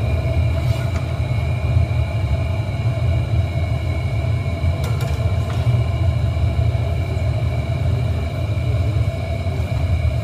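Steady low roar of a glassworks furnace and its blowers, with constant hums above it. A couple of faint clicks about halfway through.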